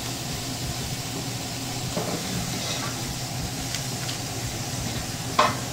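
Bacon cheeseburger patty sizzling on a hot flat-top griddle, a steady hiss over a low hum. A short, loud clatter comes near the end.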